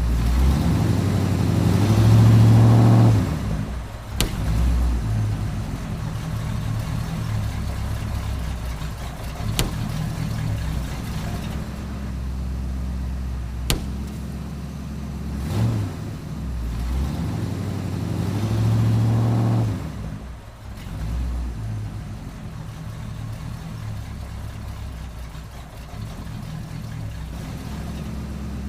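Car engine running, revving up twice, with a few sharp cracks or pops along the way.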